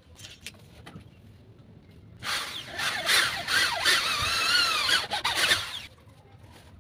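A woodworking tool cutting into wood for nearly four seconds, starting about two seconds in, with a squealing tone that wavers up and down.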